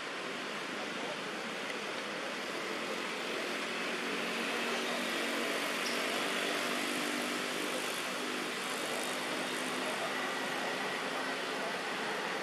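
Steady hiss-like outdoor background noise, with a faint low engine-like drone coming and going through the middle.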